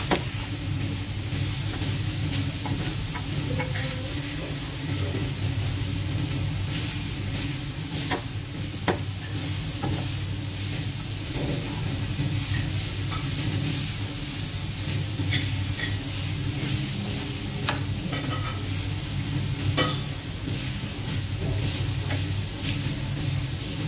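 Chicken strips with onions and peppers sizzling on a cast-iron griddle pan over a gas burner, with a steady low hum beneath. Scattered sharp clicks and scrapes of a utensil stirring the food against the pan, several between about 8 and 20 seconds in.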